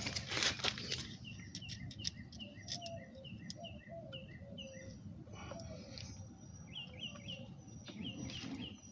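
A small bird chirping repeatedly in short high down-slurred notes, about two a second, with a pause in the middle, over faint background noise. A few light clicks sound in the first second.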